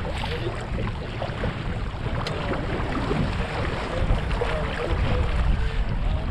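Water rushing along the hull of a small sailboat under way, with wind rumbling on the microphone. A single short tick comes about two seconds in.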